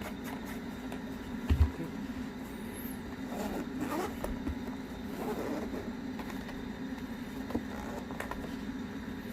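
A zippered carrying case being handled: a zipper being worked and fabric scraping, with a low thump about a second and a half in, over a steady low hum.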